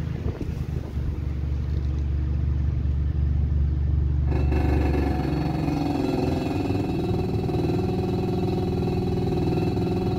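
Car driving, heard from inside the cabin: a steady low engine and road rumble. About four seconds in, a droning sound made of several higher tones joins it and lasts to the end.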